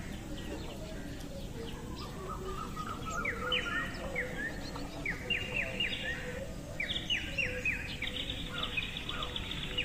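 Birds calling: from about two seconds in, many short, quick chirps, and near the end a fast, high trill, over a low, steady background noise.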